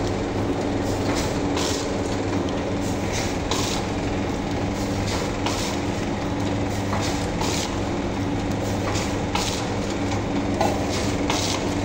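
Automatic vertical pouch packing machine running in production. It gives a steady low hum with a short hiss repeating about once a second as it cycles through pouches.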